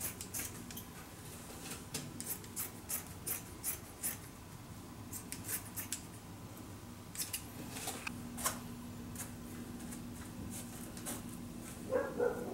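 Scissors snipping through carpet fabric along the edge of a trim panel: quick repeated cuts, closely spaced in the first few seconds and again in a short run about seven to eight seconds in, then only the odd snip.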